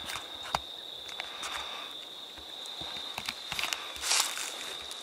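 Footsteps on the forest floor: a person walking through brush and leaf litter, with irregular scuffs and steps, the loudest about four seconds in.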